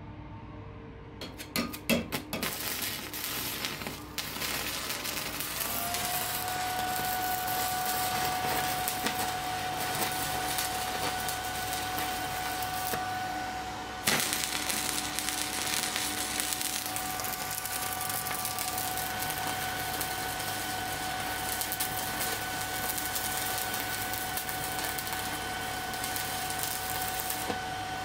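Stick (MMA) welding with a 3.2 mm electrode on an inverter welder at 100 A. A few sharp cracks about two seconds in as the arc is struck, then a steady arc crackle and hiss with a faint whine underneath. About halfway through the arc fades briefly and re-strikes with a sharp crack.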